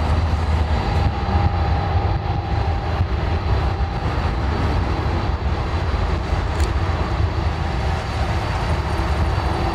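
Large jet airliner's engines running at high power, a steady low rumble that is resounding across the airfield, with a faint steady whine above it from about a second in.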